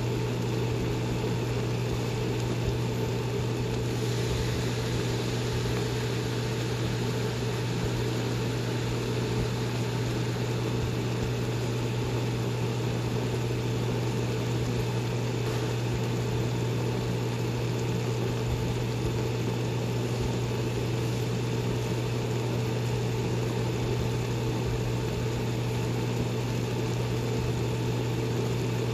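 Steady low hum with an even hiss over it, from a running kitchen appliance next to the cooking pot of ramen.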